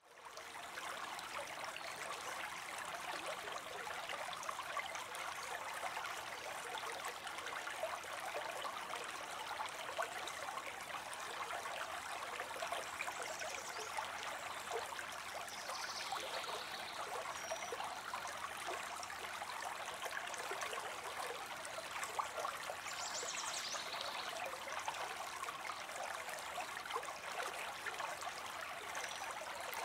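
Steady rushing of a flowing stream, with a few short, faint bird chirps over it now and then.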